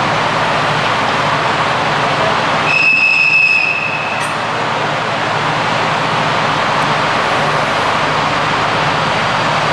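Irish Rail InterCity diesel train standing with its engine idling: a steady low hum under a wash of noise. About three seconds in, a high steady tone sounds for about a second and a half.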